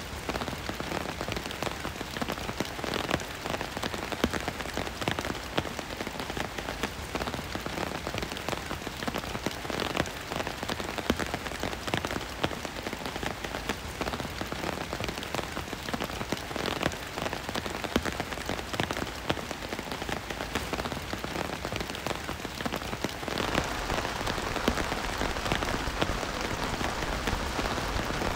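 Rain falling on a nylon tarp pitched over a tent, with many separate drops tapping the fabric over a steady hiss. Near the end it turns into a fuller, steadier rush.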